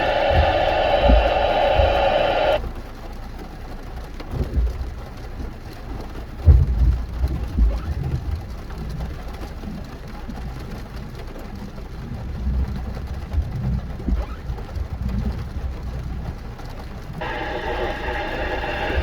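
Low rumble and irregular thumps of a vehicle on the move. A loud, steady sound made of several tones cuts off suddenly about two and a half seconds in and starts again suddenly near the end.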